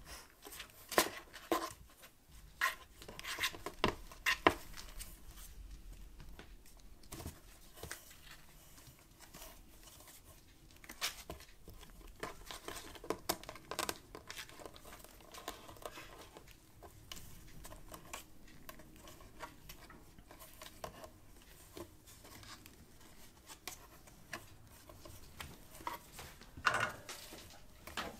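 Kittens scuffling inside a cardboard box, their claws and paws scratching and scrabbling on the cardboard in irregular bursts. The loudest scratches come in the first few seconds and again near the end.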